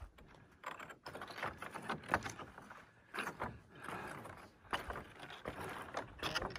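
Footsteps over loose rock slabs: irregular crunches and clinks as the flat stones shift and knock together underfoot.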